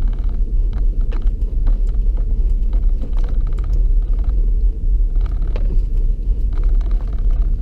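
Nissan Xterra Pro-4X driving slowly, heard inside the cabin: a steady low rumble of engine and tyres, with scattered light ticks and rattles.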